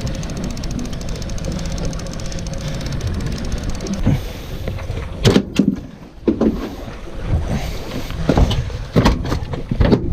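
A boat's engine runs at idle with a steady low rumble. From about four seconds in, wind gusts across the microphone and several sharp knocks sound, the loudest about five seconds and nine seconds in.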